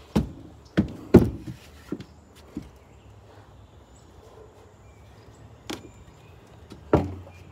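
Irregular knocks and thumps of wood against wood as boards and hand tools are handled on wooden steps: several close together in the first couple of seconds, the loudest about a second in, then a quieter stretch and two more knocks later.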